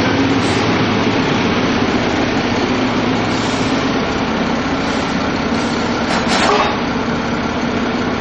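SNCF Y 8000-class diesel-hydraulic shunting locomotive idling steadily at close range. A brief hiss comes about six seconds in.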